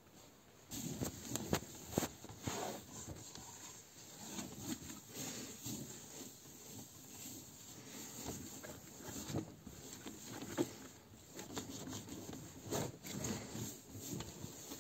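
A crumpled paper towel rubbed back and forth over a table top in an irregular scrubbing. A few sharp knocks come about one and a half to two seconds in.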